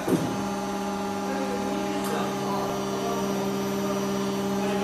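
Metal die casting machine running with a steady hum, after a short knock at the very start.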